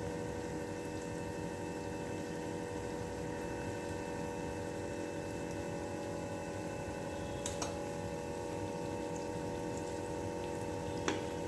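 Maida khajoor dough pieces deep-frying in oil on a low flame, a steady gentle bubbling and sizzling over a steady hum. There are two light clicks, about seven seconds in and near the end.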